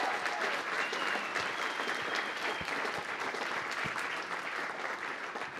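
Audience clapping after an applause line, a dense patter of many hands that slowly tapers off.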